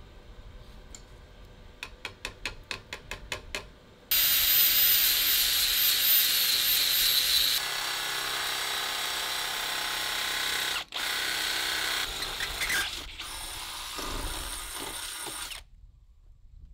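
A stick-welding arc with a 7018 rod: a few quick ticks as the arc is struck, then a loud, steady hiss for about three and a half seconds. It is followed by a cordless drill boring through aluminium angle, its motor running steadily with one brief stop, then cutting off near the end.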